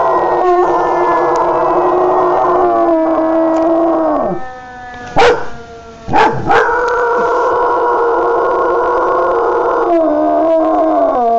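A dog howling in two long, loud howls, each ending in a falling pitch. Between them, about five and six seconds in, come a few short, sharp cries.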